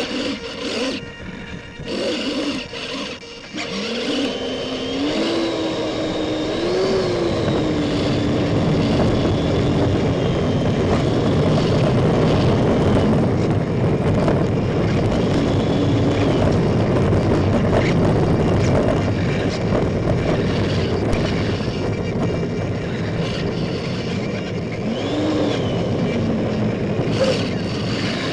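Electric ducted fans of an RC F-14 Tomcat model, heard from the onboard cockpit camera: a whine over a steady rush of air, picking up about four seconds in and rising and falling in pitch as the throttle changes.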